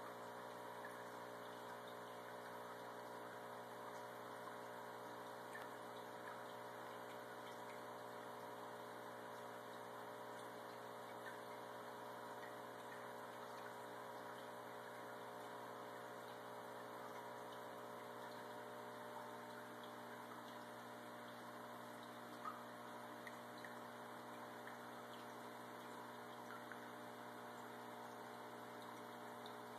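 Faint steady electrical hum with a light hiss, unchanging throughout.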